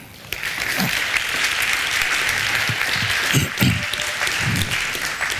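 Audience applauding, starting a moment in and holding steady.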